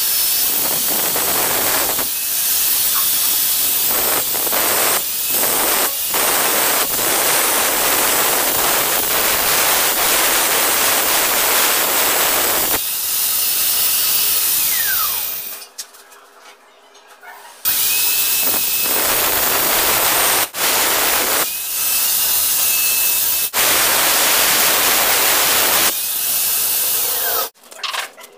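Corded electric drill boring into a tiled wall, running in long bursts with a steady whine, broken by short stops and a pause of about two seconds midway.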